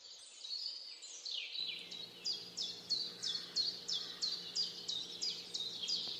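Recorded birdsong. A jumble of high chirps gives way, about a second and a half in, to a steady run of quick downward-sweeping notes at about three a second. A faint low hum sets in at the same moment.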